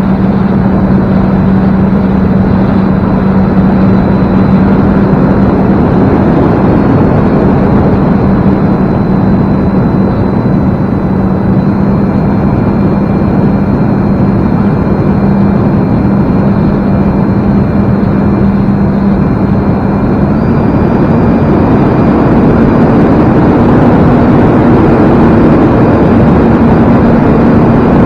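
E-flite Carbon Cub S2's brushless electric motor and propeller running steadily, heard from on board under a heavy rush of wind noise. Its hum holds one pitch and steps up a little about two-thirds of the way through.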